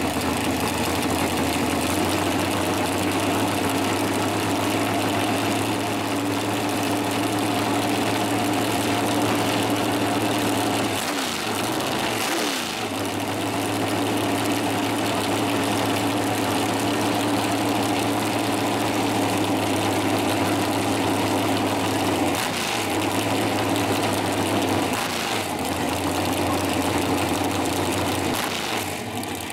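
Dragster's open-header V8 engine idling loudly and steadily. Its engine speed briefly dips and recovers a few times, once near the middle and a couple of times later on.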